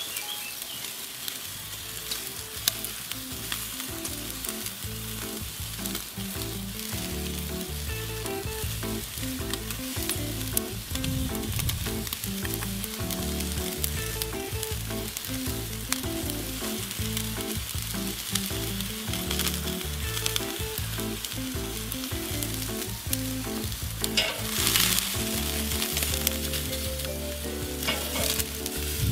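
Rib-eye steaks sizzling on a charcoal grill grate: a steady crackle of fine pops, with a louder hiss about 25 seconds in.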